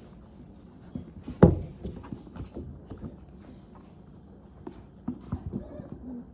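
Goldendoodle puppies moving about on a play-pen floor: scattered light paw taps and knocks, with one louder thump about a second and a half in.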